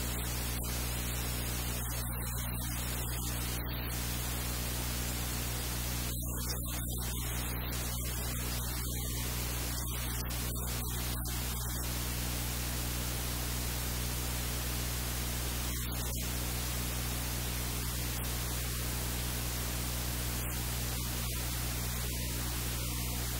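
Steady, even hiss of static with a low electrical hum beneath it, unchanging throughout.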